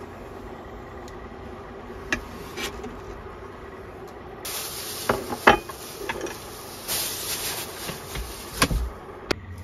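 Kitchen knife working on a plastic cutting board while slicing raw fish: soft cuts and scrapes with a few sharp knocks of the blade on the board, over a steady low hum; a hiss comes in about halfway.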